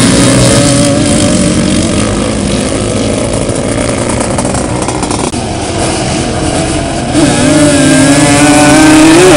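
Sport quad (ATV) engines revving hard as the quads race across sand. The strong engine note fades into a rougher mix in the middle, then comes back loud and wavering from about seven seconds in.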